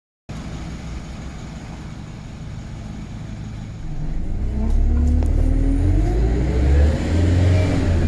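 Alexander Dennis Enviro 200 single-deck bus engine, first idling with a steady low rumble. About four seconds in, heard from inside the bus, it grows louder as the bus pulls away under load, with a whine rising in pitch: the vacuum-cleaner-like whine this bus makes.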